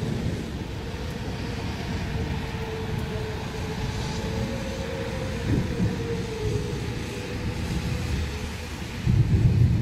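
Low rolling thunder rumbling steadily, swelling to a loud peak near the end.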